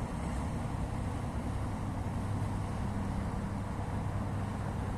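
Inland motor barge's diesel engine running steadily under way, a low drone with a constant hum.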